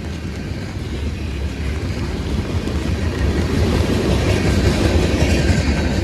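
Freight train rolling past, its cars making a steady rumble with some wheel clatter on the rails that grows a little louder partway through.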